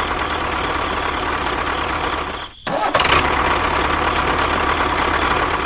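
A machine running steadily with an engine-like noise. It cuts out abruptly about two and a half seconds in, then starts again at the same level.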